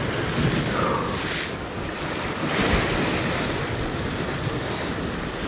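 Sea waves washing against the rocks, rising and falling with each surge, with wind buffeting the microphone.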